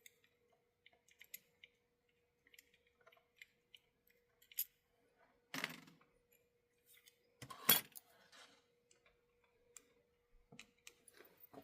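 Small clicks and taps of an HO-scale model locomotive and its small parts being handled, with two louder knocks near the middle, over a faint steady hum.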